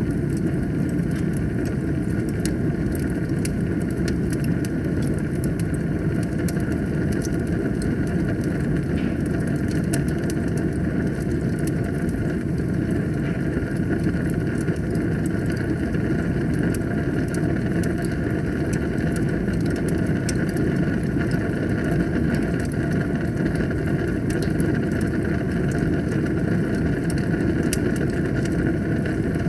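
Wood fire burning in a fireplace: a steady low rumble of flames with frequent small sharp crackles and pops.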